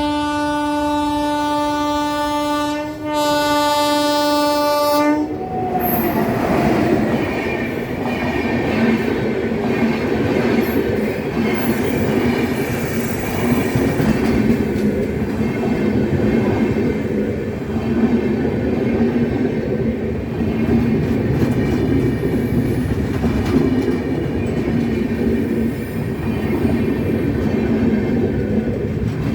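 WAP7 electric locomotive sounding its horn: two steady single-tone blasts, a short break about three seconds in, ending about five seconds in. Then the rolling wheel noise of the passing train with its LHB coaches carries on to the end.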